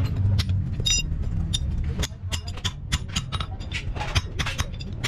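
A mallet striking small steel brackets against a steel anvil block, about three to four sharp blows a second, some leaving a brief metallic ring, with a steady low rumble underneath.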